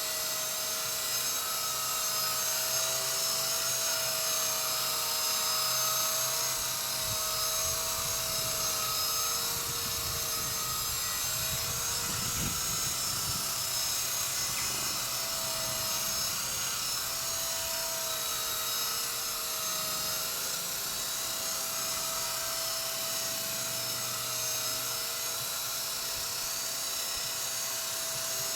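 Walkera V120D02S micro RC helicopter hovering: the electric motor and rotors give a steady whine with a slight waver in pitch.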